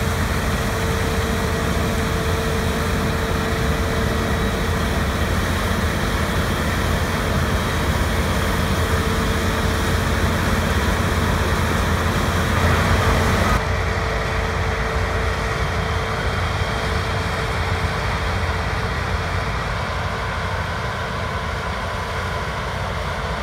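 Heavy harvest machinery running steadily, a dense mechanical din with a constant hum. About two-thirds of the way through, the sound abruptly turns duller and a little quieter.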